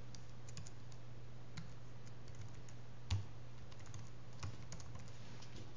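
Typing on a computer keyboard: scattered quick key clicks, with one louder knock about three seconds in, over a steady low hum.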